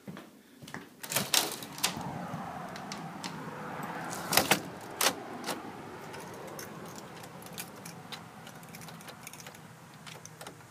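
A door being opened and shut, with sharp clicks and clunks of its latch and handle about a second in and again around four to five seconds, over a steady low hum.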